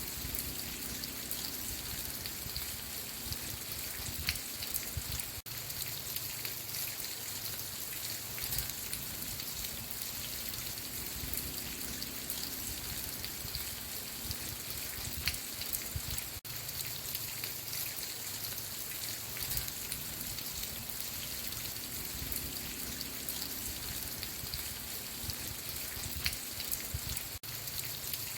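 Steady rain: a constant hiss of rainfall with individual drops heard as small ticks on a surface. The sound cuts out for a split second about every eleven seconds.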